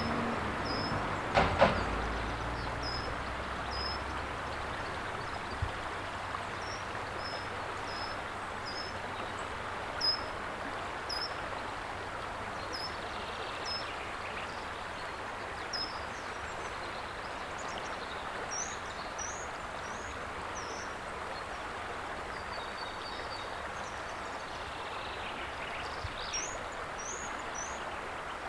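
Steady rush of flowing water with a small bird chirping over it, short high notes repeated about every half second to a second, a few of them rising near the end. A few brief knocks, the loudest about a second and a half in.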